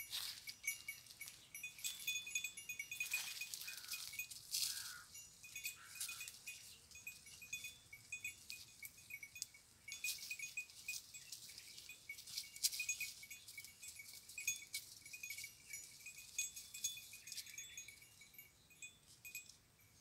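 Goat bells tinkling irregularly as goats walk and browse through dry brush, with twigs rustling and snapping.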